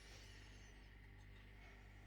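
Near silence: faint hiss with a low steady hum.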